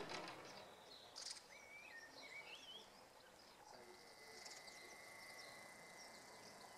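Faint outdoor ambience with birds calling: a few short, warbling, rising chirps in the first three seconds. From about four seconds in, a thin steady high tone runs on.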